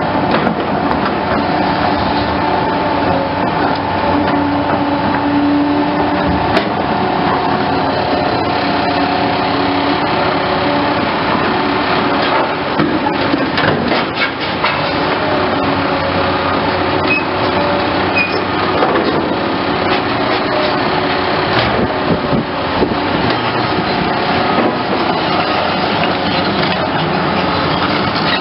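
Excavator working: its engine and hydraulics run steadily under load, with held tones that shift in pitch and now and then a sharp knock from the bucket or the gear.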